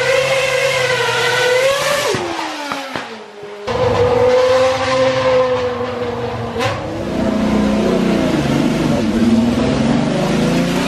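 Racing car engines at full speed, one after another with abrupt cuts. First a high-pitched engine note holds, then drops in pitch about two seconds in as the car passes. After a cut, a red Ferrari Formula One car screams past on a steady high note, and from about two-thirds of the way through a Gulf-liveried Porsche 917's lower-pitched engine revs, rising and falling.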